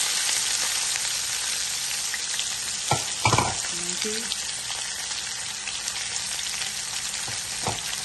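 Sliced red onions sizzling in hot oil in a pan, just added. The frying hiss eases off gradually, with a couple of short knocks about three seconds in and another near the end.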